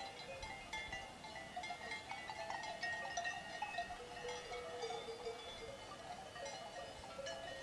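Cowbells on a grazing herd of cattle, ringing and clanking irregularly. Many bells of different pitches overlap in a continual jangle.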